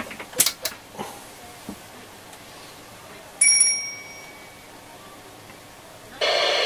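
Sony ICF-2001D receiver being powered up: a few clicks about half a second in, a single bright beep about three and a half seconds in that rings away, then near the end the speaker cuts in with a steady hiss of static.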